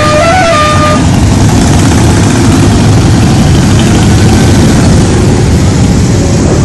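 Cruiser and touring motorcycles riding slowly past one after another, their engines running with a loud, steady low rumble. In the first second a horn sounds a short run of stepped notes.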